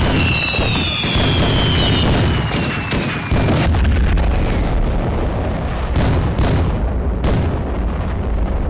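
Fireworks going off in a dense barrage: a constant booming rumble packed with sharp bangs. A whistling firework sounds over the first couple of seconds, falling slightly in pitch. In the second half come several single loud reports about half a second apart.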